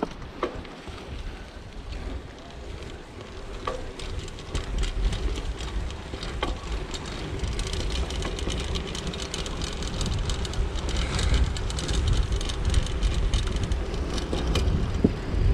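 Bicycle riding on a gravel road: steady tyre noise over the gravel with frequent small clicks and rattles, under a low wind rumble that grows louder as it goes.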